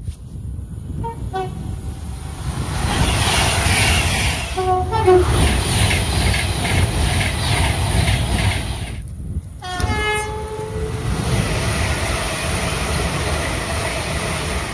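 British trains sounding two-tone warning horns, high note then low, in short blasts about a second in, around five seconds and again just after ten seconds. Each horn plays over the loud rush and rumble of a train passing. A sudden break shortly before the last horn.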